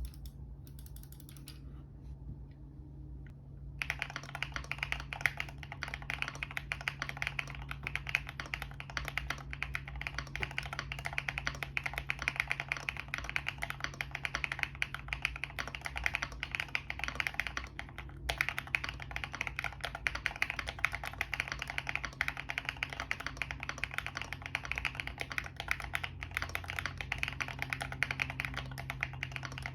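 Keychron Q1 mechanical keyboard with lubed Zaku linear switches, dampened with tape under the PCB, plate foam and polyfill, being typed on quickly and continuously. The typing starts about four seconds in and breaks off briefly about two-thirds of the way through.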